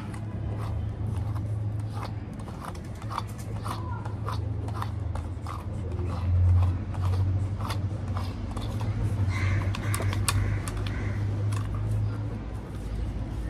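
A pet brush raking through a husky puppy's thick fur in a run of short scratchy strokes, over a steady low hum.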